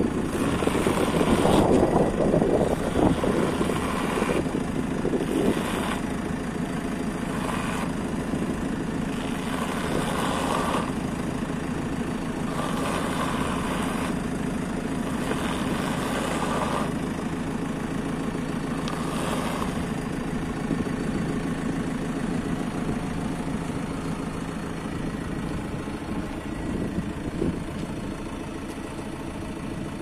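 JCB 4CX backhoe loader's four-cylinder diesel engine idling steadily, a little louder for the first few seconds. Short rises in a higher-pitched sound recur every couple of seconds for the first two-thirds, then the engine runs on evenly.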